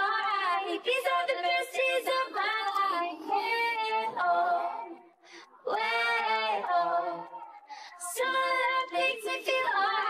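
A high female voice singing a pop song over the soundtrack, holding and bending notes, with a short break about five seconds in.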